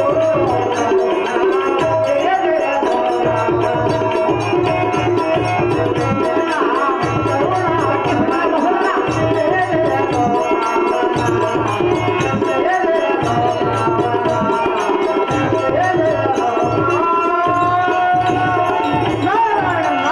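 Folk-theatre accompaniment music: hand drums beating a steady rhythm under sustained melodic tones, with a few sliding pitches in the melody.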